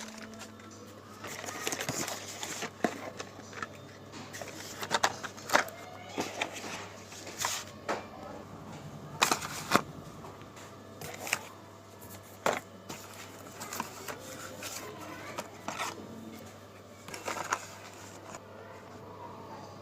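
Slate pencils being bitten and chewed: irregular sharp crunches and cracks, with the loudest bites every second or two, over a faint steady low hum.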